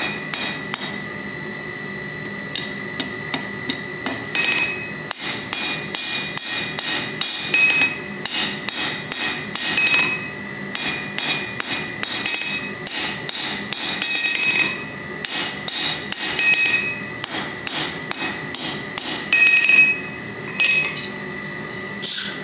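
Hammer striking hot steel on an anvil in quick runs of ringing blows with short pauses between them, drawing down the taper on a forged bottle opener.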